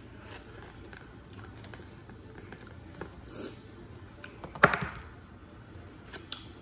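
Eating sounds: a plastic fork tapping and scraping on a plastic plate, with scattered small clicks and one louder clatter about two-thirds of the way through.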